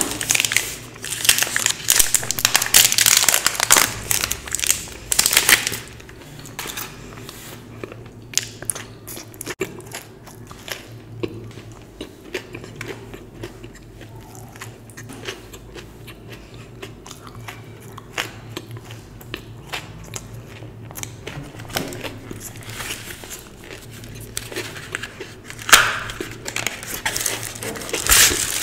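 Chocolate wrapper crinkling and being torn open for several seconds, then quieter chewing and biting of chocolate with small crunches. Near the end there is more loud crinkling and rustling as a chocolate box and wrapper are handled.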